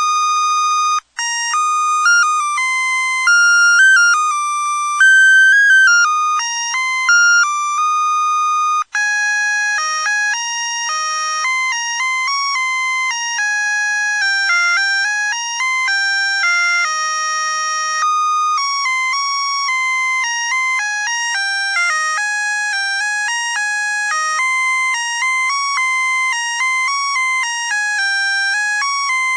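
Musical Christmas light string's sound chip playing beeping electronic melodies, note by note like a ringtone. The tune breaks off briefly about a second in and again near nine seconds, then carries on.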